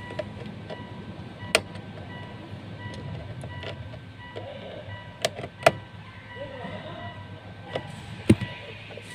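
A few sharp clicks and knocks of hard parts being handled, with a steady hum underneath.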